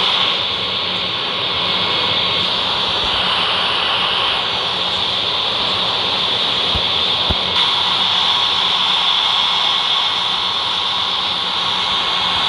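Jet airliner engines running, a steady high whine-like hiss with a faint hum underneath. Two faint low knocks come about seven seconds in.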